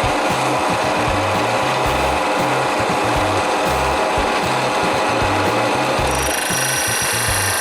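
A 700 W Titan TTB541DBT drill press running at high speed while a 75 mm Forstner bit bores into pine, a steady motor and cutting noise; the speed is too high for that bit, enough to start burning the edges. About six seconds in, a higher hiss joins it. Background music with a bass line plays underneath.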